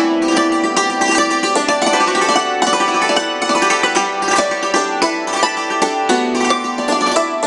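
Hammered dulcimer played with two hammers: a fast, continuous run of struck notes, the strings ringing on over one another.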